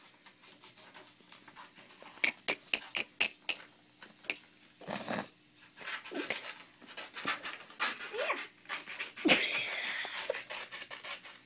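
Scissors snipping through a sheet of plain printer paper in a string of short sharp clicks, mixed with the paper rustling and crinkling as it is turned.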